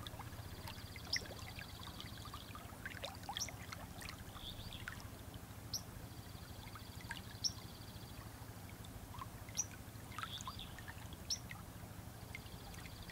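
Faint steady rush of a wide river flowing, with scattered bird chirps and a buzzy trill that comes and goes every few seconds.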